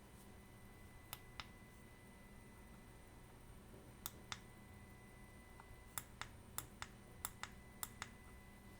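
Faint, sharp clicks of small metal watchmaking tools handled on a wristwatch during repair: about a dozen light clicks, several in quick pairs, over low room hum.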